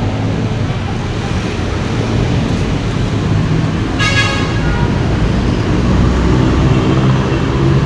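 Motor vehicle engine running steadily with road noise, and a short horn toot about four seconds in.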